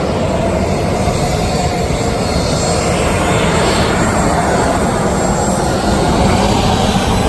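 Steady rushing noise of a jet airliner, loud and unbroken, with no distinct events.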